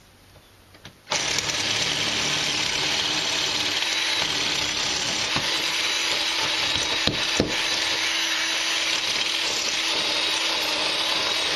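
Cordless drill boring into a concrete block wall. It starts suddenly about a second in and runs steadily, with a few short knocks around the middle.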